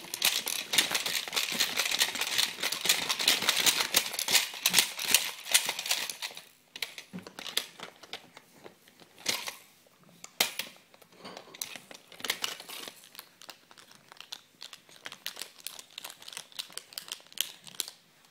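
A baby handling plastic toys and a TV remote, making a dense crinkling, clattering rustle for about the first six seconds, then scattered clicks and taps.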